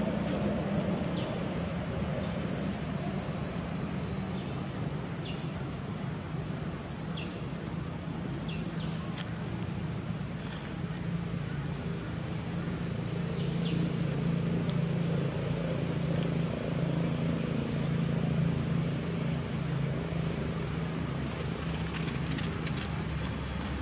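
Steady, high-pitched insect chorus, unbroken throughout, over a low steady hum.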